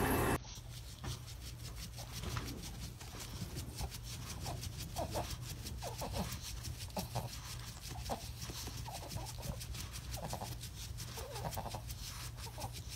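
Running water cuts off within the first half second. Then two dogs play-wrestle, giving short, squeaky grunts and whines that fall in pitch, again and again, over faint rapid clicking.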